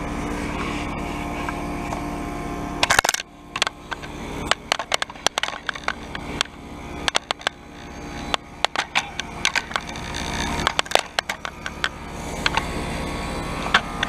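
Carrier Comfort Series heat pump outdoor unit running in defrost mode, a steady compressor hum with fixed tones. About three seconds in there is a brief loud rustle, then many sharp crackles and clicks over a lower hum that slowly builds.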